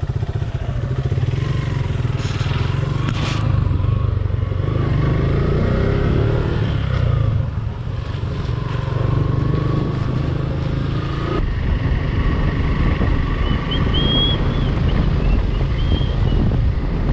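Suzuki Gixxer 150's single-cylinder engine running while the bike is ridden, its revs rising and falling as it pulls away and picks up speed.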